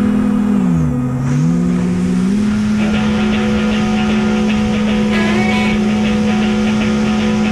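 Motor and propeller of an RC FPV flying wing running at a steady whine, the pitch dipping briefly about a second in and coming back up.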